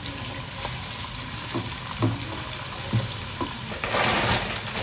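Bratwurst, onions and peppers sizzling in butter in a stainless steel pot, stirred with a silicone spatula that knocks lightly against the pot a few times. A louder hiss sets in near the end.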